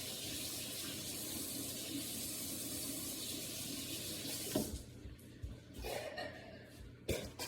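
Water running steadily from a tap, shut off about four and a half seconds in, followed by a few light knocks.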